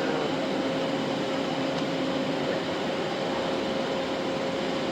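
Steady mechanical hum with a constant low tone over an even hiss, like the air handling of a large hall.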